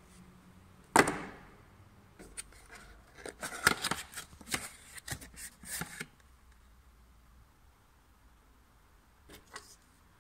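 Hands handling a small cardboard parts box and pulling a new crankshaft position sensor out of it. There is a sharp knock about a second in, then a few seconds of rustling and clicking from the cardboard and the plastic part, and two faint clicks near the end.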